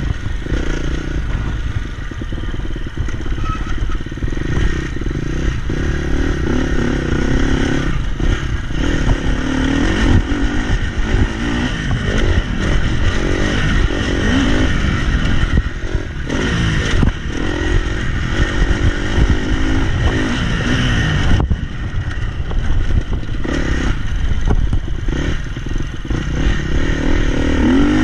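Motocross dirt bike engine under way, its pitch repeatedly rising and falling as the throttle is opened and closed, with a sudden drop-off about three-quarters of the way through. Heavy wind rumble on the camera's microphone from the riding speed.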